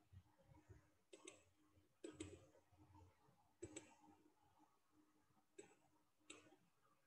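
Faint computer mouse clicks, five or so, some in quick pairs, a second or more apart, over near-silent room tone with a faint steady hum.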